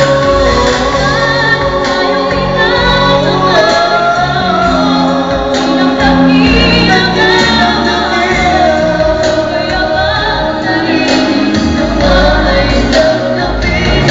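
Choir singing a gospel worship song over instrumental backing with a steady beat.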